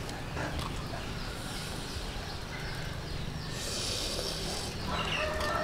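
Quiet outdoor background with a steady low rumble; a brief hiss about three and a half seconds in, and a chicken clucking near the end.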